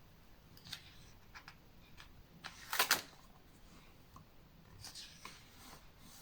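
Paper pages of a photo book being handled and turned: a few soft rustles, the loudest a longer swish about halfway through.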